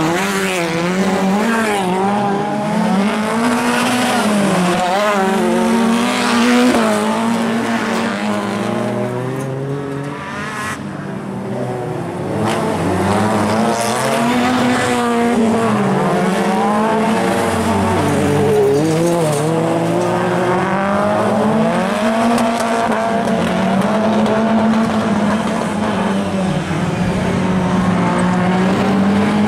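Several rallycross cars of up to 1600 cc racing, their engines revving up and down through the corners with the overlapping pitches of more than one car rising and falling. It dips briefly about ten seconds in before rising again.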